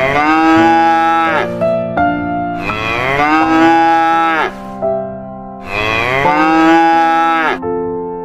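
Cow mooing three times, long drawn-out calls that drop in pitch as each ends, over background keyboard music.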